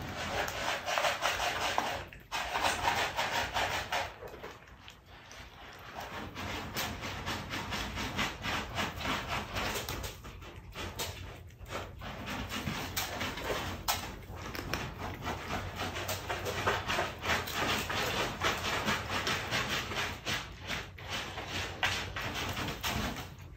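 Cats scratching and digging in cat litter in a litter box: a gritty, rapid scraping that comes in runs, with brief pauses about two seconds in and again around ten to twelve seconds in.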